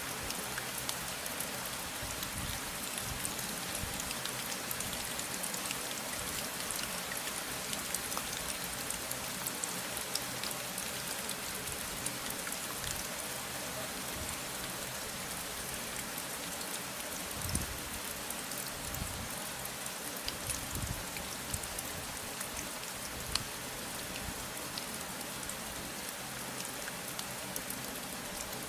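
Steady rain with many individual drops pattering on a surface, an even hiss with scattered sharper drips and a few soft low thuds.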